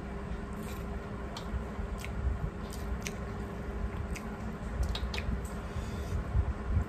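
Close-up eating sounds: wet squishing of rice and dal being mixed and squeezed by hand on steel plates, with chewing and scattered sharp, wet mouth clicks.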